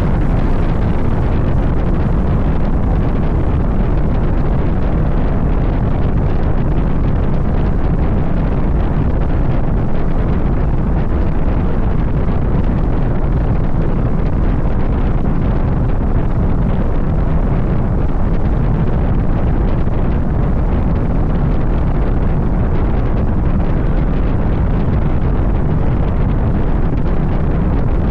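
Steady wind rushing and buffeting over the microphone of a moving car, with engine and road noise underneath.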